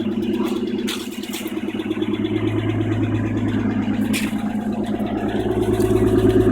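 BMW 325i coupe's straight-six engine idling steadily just after a cold start, with a few sharp ticks over the hum. The VANOS is rattling, which the owner likens to a little leprechaun with a hammer playing in the engine.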